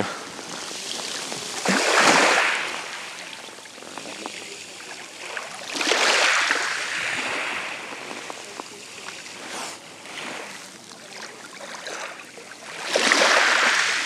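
Light sea surf washing over a pebble beach on a nearly calm sea: three gentle waves swell and break a few seconds apart, with a softer wash and trickle between them.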